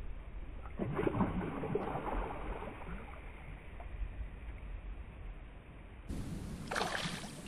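Lake water splashing and swirling at the shoreline as fishing line is hauled in by hand at a forked-stick pike rig, over a low wind rumble on the microphone. The splashing comes in a flurry about a second in and again near the end.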